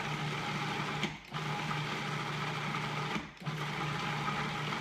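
Food processor motor running, blending a thick chocolate pudding mixture: a steady motor hum that stops briefly twice, about a second in and again past three seconds, restarting each time.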